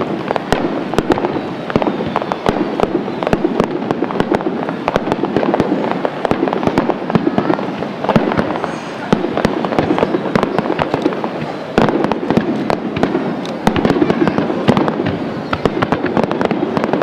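Aerial fireworks bursting and crackling in a dense run of sharp reports, several a second, with no pause.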